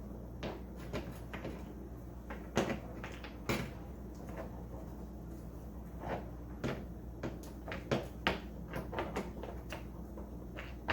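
Rocks knocking and clicking against each other and against a metal paint bucket as they are turned over in rubbing alcohol, a dozen or so irregular sharp knocks.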